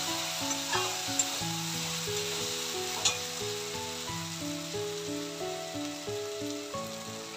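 Onion, ginger and garlic sizzling in hot oil in a steel kadai while a steel spatula stirs them, with a few sharp clicks of the spatula on the pan. A soft background music melody plays alongside.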